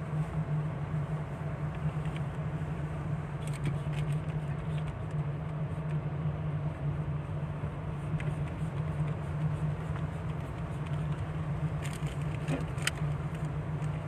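Steady drone of a car's engine and road noise heard from inside the cabin while driving, with a few faint clicks about four seconds in and again near the end.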